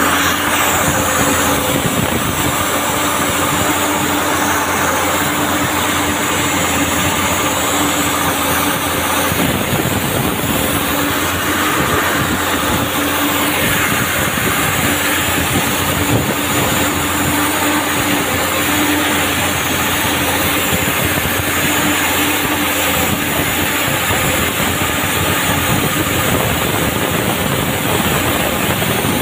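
Komatsu PC200-8 excavator's diesel engine running steadily on its test run after injector replacement, with a steady whine over the engine noise.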